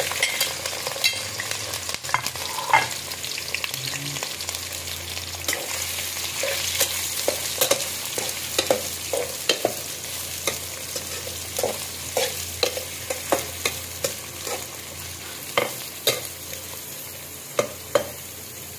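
Sliced bitter gourd frying in hot ghee in a metal karahi, sizzling steadily while a spatula stirs it and scrapes against the pan in many short strokes.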